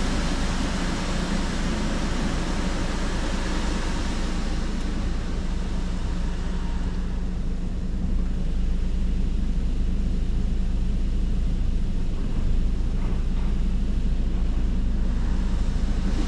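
Automated car wash heard from inside the car's cabin: water spraying and streaming over the windshield and body as a steady hiss over a low machinery rumble. The hiss thins about seven seconds in, leaving mostly the rumble.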